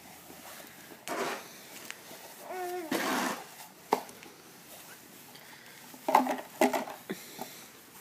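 A few short scrapes and crunches of snow, with brief high vocal sounds from a young child in between.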